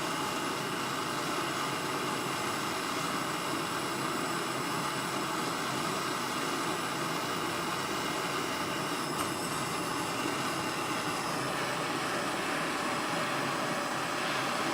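Large gas soldering torch burning steadily with a continuous rushing hiss, heating a silver buckle for silver soldering.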